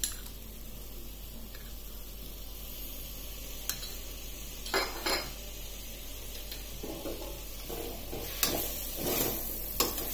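Spiced vegetables sizzling steadily in a stainless-steel pressure cooker, with a couple of sharp clicks near the middle as curd goes in. From about eight seconds in, a ladle stirs and scrapes against the pot.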